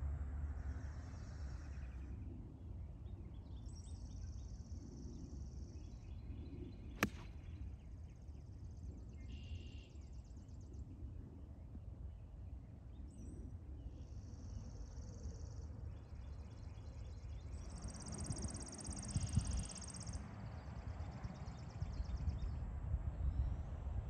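Songbirds singing outdoors, several high trilled songs coming and going over a steady low rumble. About seven seconds in comes one sharp click of a golf club striking a ball.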